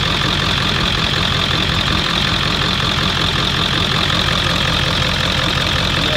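Ford 7.3L Powerstroke V8 turbo diesel idling steadily with its diesel clatter, heard close up in the engine bay, with a steady high hiss over it.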